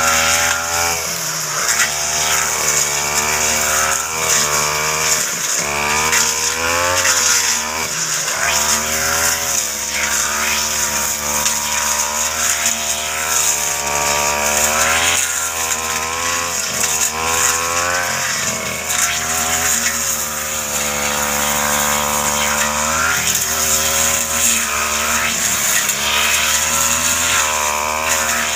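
Backpack two-stroke brush cutter running under load as it slashes through ferns and grass, the engine speed rising and falling over and over.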